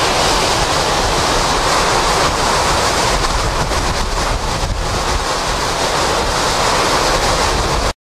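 Hurricane wind and driving rain: a loud, steady rushing noise that cuts off abruptly near the end.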